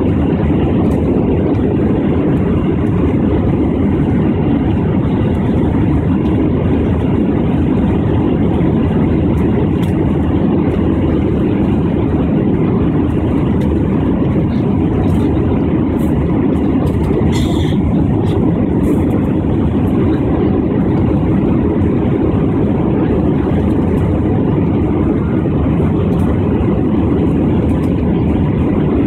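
Steady drone of a jet airliner's engines and rushing air, heard inside the passenger cabin during the climb after takeoff.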